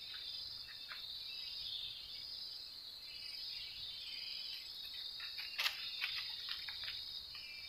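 Steady high-pitched chorus of forest insects, with a scattering of short clicks, the sharpest about five and a half seconds in.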